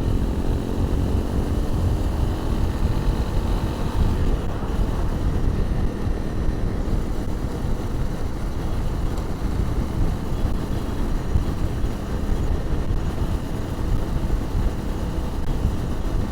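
A 250 cc motorcycle engine pulling along while riding, under heavy wind rumble, heard through a lavalier mic inside a crash helmet. The engine note climbs slightly over the first few seconds, then is mostly lost under the steady low wind buffeting.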